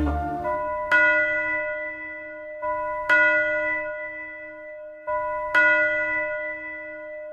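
A church bell tolling: three strokes about two and a half seconds apart, each ringing on and slowly dying away, with a softer bell tone sounding between strokes. At the start the last of the string accompaniment fades out.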